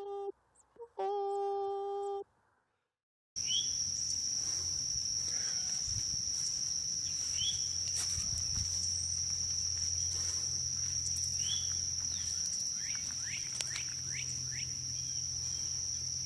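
A held, steady pitched call or hum for about two seconds, which stops at a cut. Then comes outdoor ambience: a steady high insect-like drone with scattered short bird chirps over a low hum.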